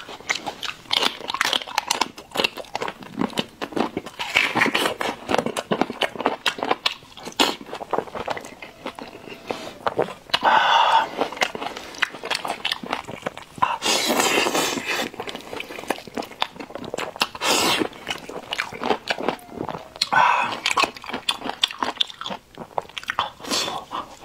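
Close-miked chewing and biting of spiced lamb head meat: wet mouth sounds and crunches, with several louder bursts along the way.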